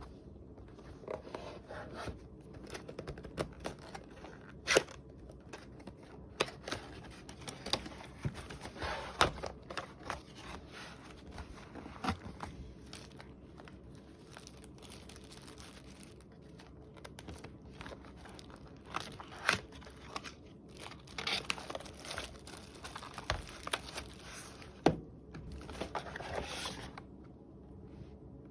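Packaging being handled: crinkling and tearing of paper or plastic, with scattered light clicks and taps as objects are set down.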